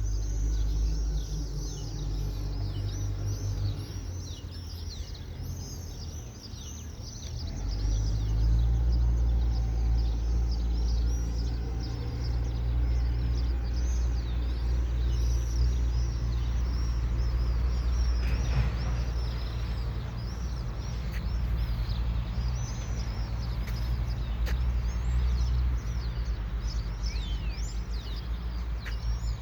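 Many small birds chirping without pause: a dense chorus of short, high, falling chirps. Underneath is a steady low rumble, louder than the birds, that swells about eight seconds in.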